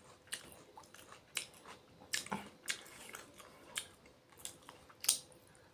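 Close-up chewing of a meal of fish curry and rice, with irregular wet mouth smacks and clicks a few times a second.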